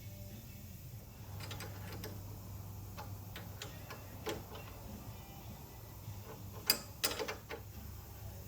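Scattered light metallic clicks and taps as new copper sealing washers and the brake-line fitting are handled and fitted, with a sharper click about seven seconds in, over a steady low hum.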